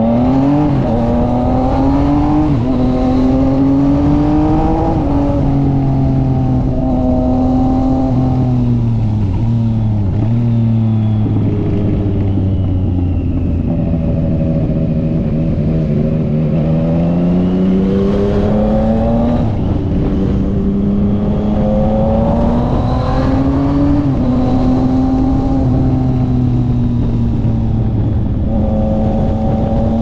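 Yamaha MT-09 three-cylinder engine through an aftermarket Austin Racing exhaust, ridden in traffic: it pulls up through the gears with a short drop in pitch at each upshift, eases off and slows around five to ten seconds in, then builds again with more upshifts around 18 and 23 seconds in before settling to a steady cruise.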